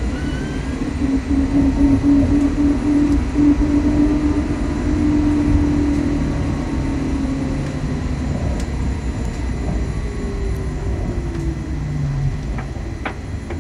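Trolley bus electric traction motor whining inside the cabin over a steady road rumble. The whine is strongest in the first few seconds, then slowly falls in pitch and fades, and a lower whine slides down near the end.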